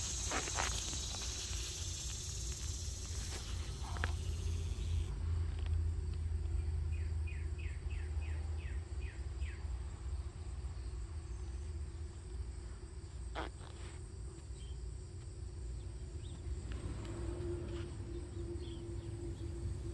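Outdoor yard sounds: a low rumble throughout with high insect buzzing, a run of about eight quick chirps about seven to nine seconds in, and one sharp click a little past the middle. A faint steady hum grows slightly louder near the end.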